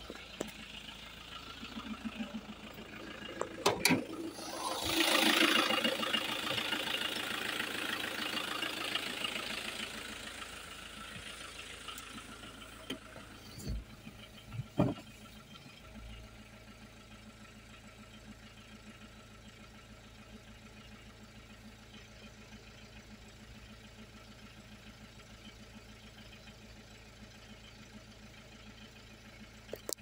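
A thump about four seconds in, then the Peugeot 306 2.0 HDi's four-cylinder turbodiesel engine runs and settles into a steady idle. The idle is the sign that the car now starts after its ECU was replaced and reprogrammed.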